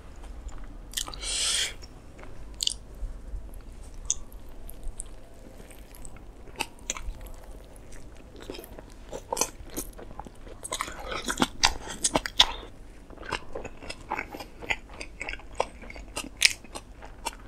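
Beef burger being bitten and chewed close to the microphone: wet chewing with many small clicks and crunches, with a louder burst of noise about a second in and a thicker run of clicks near two-thirds of the way through.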